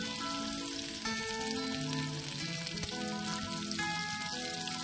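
Food sizzling as it fries in a pan, a steady hiss with small crackles. Background music with sustained chords plays over it.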